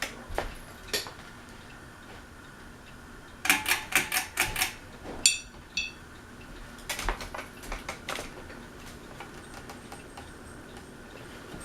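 Ceiling fan pull chain clicking against the glass shade of the light kit as the fan runs on high. The taps are irregular, with a quick run of clicks about three and a half seconds in and two short ringing tinks just after.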